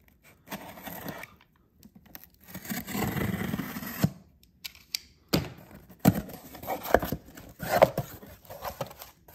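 Utility knife slitting the packing tape along the seam of a small cardboard box, one drawn-out cut of about a second and a half. After that the cardboard flaps are pulled open by hand, with several sharp knocks and crackles.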